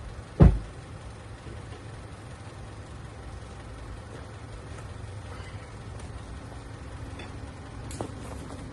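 A loud thump about half a second in, then a steady low rumble like an idling engine, with a sharp click near the end.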